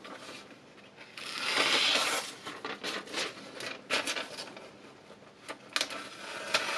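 Steel knife blade stroked along a 1500-grit diamond sharpening stone: a scraping hiss lasting about a second, followed by a run of light clicks and taps.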